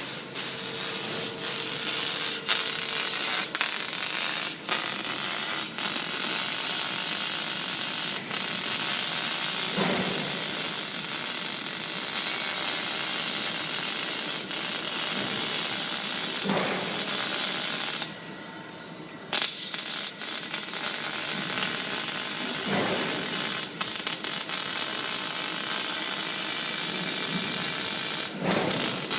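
Robotic welding arc from a KUKA welding robot, crackling steadily with fine sputtering ticks. It stops for about a second two-thirds of the way through, then strikes again for the next weld.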